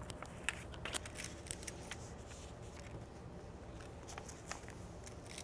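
Faint, irregular small clicks and rustling as straight pins are picked from a pin box and pushed through a paper pattern into corduroy fabric.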